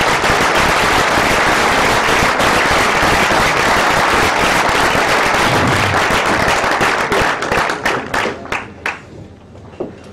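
Audience applauding: dense clapping that thins out after about seven seconds into a few scattered claps and fades near the end.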